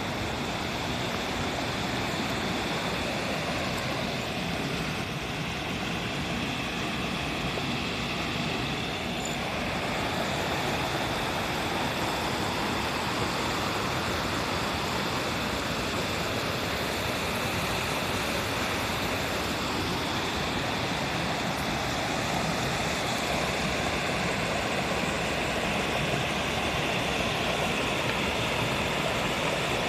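Steady rushing of a mountain stream, water running over rocks without a break.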